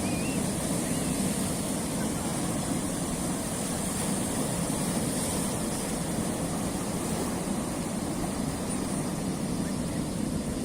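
Surf washing steadily against a rocky shore, a continuous rushing noise without distinct breaks.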